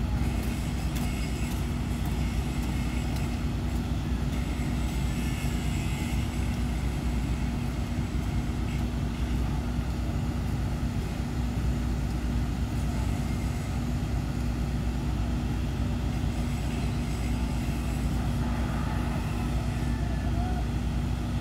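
Crane diesel engines running steadily while the cranes hold a steel bridge girder aloft: a constant low rumble with a steady hum.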